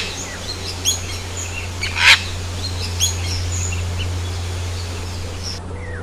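Cockatoo screeching: a harsh, loud screech right at the start and another about two seconds in, with shorter, higher calls between, over a steady low hum.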